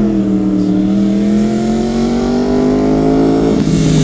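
Superbike racing motorcycle engine running loud at high revs during launch-start practice. Its pitch dips at first, climbs slowly for a few seconds, then falls away near the end.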